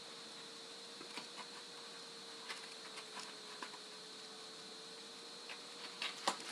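Quiet room tone with a faint steady hum, broken by a few soft clicks and taps from fingers handling a hardcover picture book held up to the camera, with a louder cluster of handling noises near the end.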